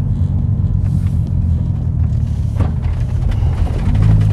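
Mini Cooper convertible with an aftermarket sports exhaust, heard from inside the cabin while driving slowly: a steady low exhaust drone. The note swells louder and steadier near the end, and there is one brief click about halfway through.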